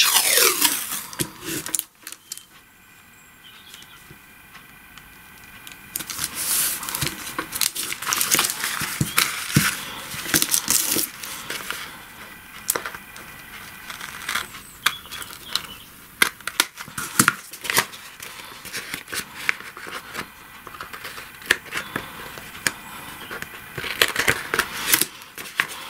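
Masking tape being pulled off its roll with a crackling rip, scissor snips cutting it, and paper envelopes rustling as they are handled and pressed down. The handling noises come in irregular crackles and clicks after a quiet few seconds near the start.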